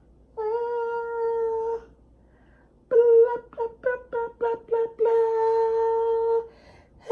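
A woman singing on one steady pitch: a long held note, a quick run of short clipped notes, then another long held note.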